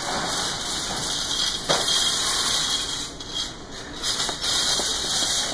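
Child-size metal shopping cart rolling over a hard store floor, its small casters giving a continuous rattling hiss, with a knock about a second and a half in.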